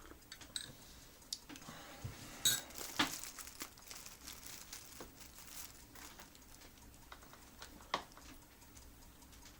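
Scattered small clicks, taps and crinkling over a low room hiss, with sharper knocks about two and a half seconds in, at three seconds and near eight seconds.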